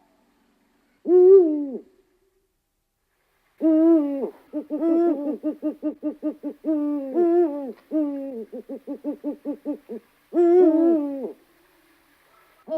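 A bird calling: drawn-out, pitched calls that fall away at the end, with runs of short, quick notes between them, about five a second.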